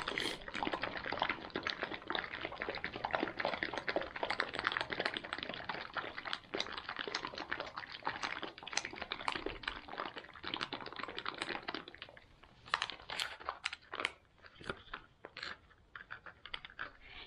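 Plastic freeze-dried smoothie pouch crinkling and rattling as it is shaken hard to mix the powder with water, a rapid continuous crackle. About twelve seconds in it thins to scattered crinkles as the pouch is handled.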